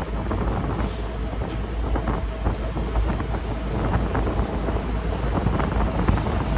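Wind buffeting the microphone on the open deck of a moving passenger ferry, over a steady low rumble from the boat and the rush of river water along the hull.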